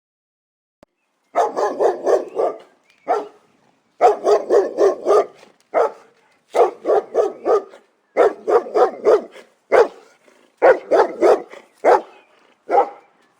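A dog barking in quick runs of several barks, about four or five a second, with short pauses between runs, starting about a second in.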